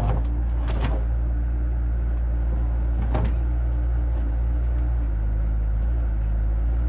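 An engine running steadily at a low pitch, with a few sharp metal clanks: one at the start, one just under a second in and one about three seconds in.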